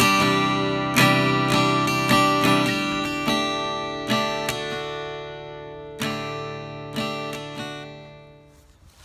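Acoustic guitar music: strummed and picked chords ringing out, slowing to a few single strums and fading away near the end.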